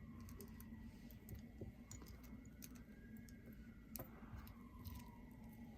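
Faint, scattered clicks of costume jewelry being handled, with a slightly louder tick about four seconds in, over near-silent room tone.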